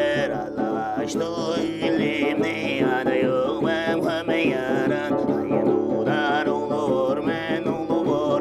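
Music: a plucked string instrument over a steady held drone, with wavering sung or melodic lines above it.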